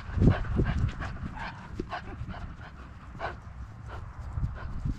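A dog moving over light snow, heard close up through a camera on its collar: soft, irregular footfalls and breathing.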